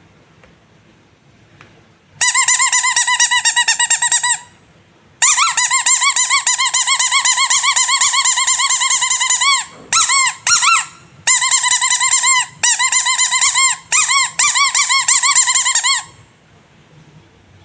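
Rubber squeaky animal toy squeezed over and over, giving a high, rapidly wavering squeak. A run of about two seconds starts about two seconds in and a longer run of over four seconds follows. Then come several shorter bursts, and the squeaking stops about sixteen seconds in.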